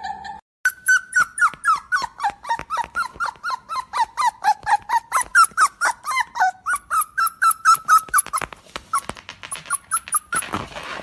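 Recorded sound of a hurt puppy whimpering: a fast run of short, high squeaky cries, several a second, sliding a little lower in pitch over the first few seconds and then holding steadier. It breaks off just before the end.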